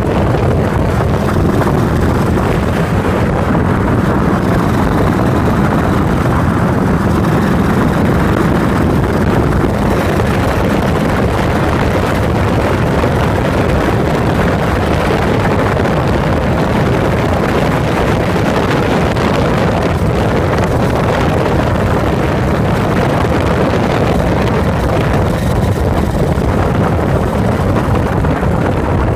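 Yamaha SRX4's air-cooled single-cylinder engine running steadily under way, heard close from beside the fuel tank with wind noise over the microphone.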